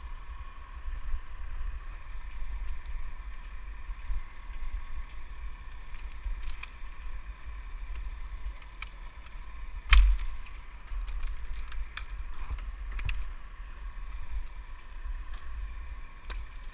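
Tree climber's rope and climbing hardware clinking and rattling in short scattered clicks, with one sharp knock about ten seconds in, over the low rumble of wind on the head-mounted camera's microphone and a steady faint hum.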